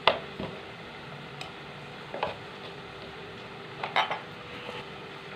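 Kitchen utensils knocking and clinking against cookware: a few separate sharp knocks, one right at the start, one around two seconds in and a quick pair about four seconds in, over a steady faint background hiss.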